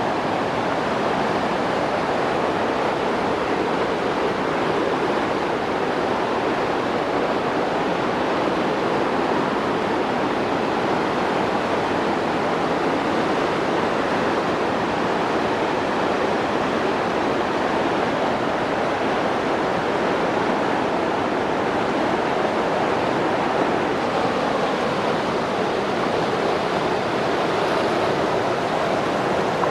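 Waterfall on the Nzoia River rushing steadily, a loud unbroken roar of falling water.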